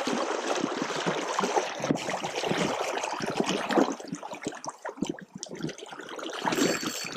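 Flowing river water rushing and trickling, a close noisy wash that grows patchier and quieter about four seconds in.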